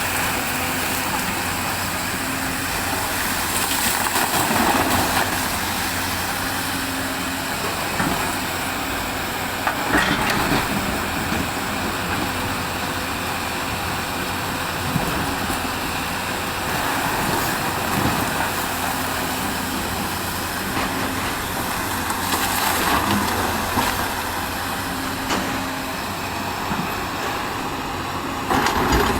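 Hyundai 210 excavator's diesel engine running steadily under working load as it shifts rock, with occasional short knocks of rock being moved.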